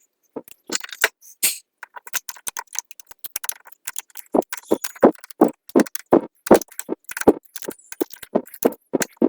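Irregular clicking and tapping of small metal SU carburettor parts as the float bowl is handled and fitted back on. There are a few sharp knocks a second, and they get denser and louder about halfway through.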